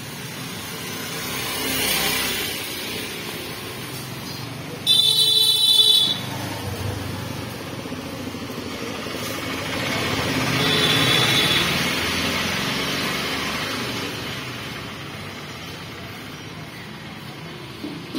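Street traffic: motorbikes and scooters passing, swelling and fading twice. A loud, high-pitched horn sounds for about a second about five seconds in, and a fainter horn near the middle.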